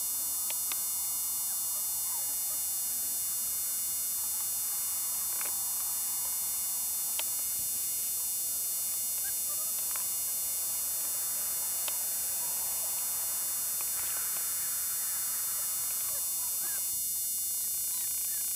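Steady electrical hum and hiss, with faint scattered squeaks and clicks from a litter of Doberman pinscher puppies playing.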